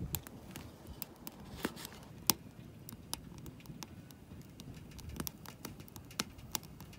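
Firewood burning in a homemade charcoal-can wood stove, crackling with scattered sharp pops and snaps at irregular intervals.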